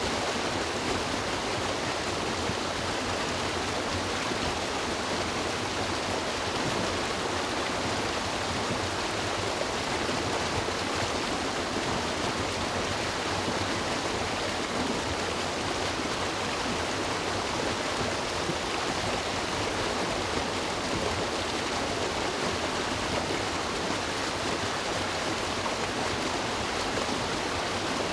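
River water rushing and splashing over rocks, a steady, even rush.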